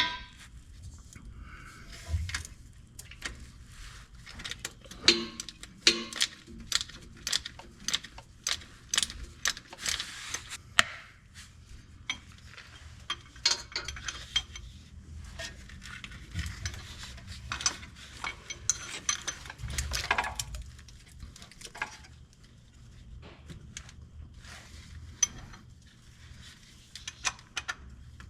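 Metal hand tools and parts clinking, knocking and scraping in irregular bursts, with a few louder knocks, as a starter motor is fitted to a pickup truck.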